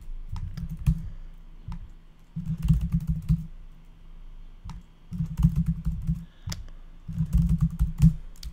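Typing on a computer keyboard: four quick bursts of keystrokes, each about a second long, with short pauses between them.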